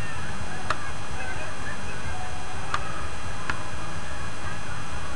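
Murmur of an outdoor crowd of onlookers over a steady background rush, with three sharp clicks.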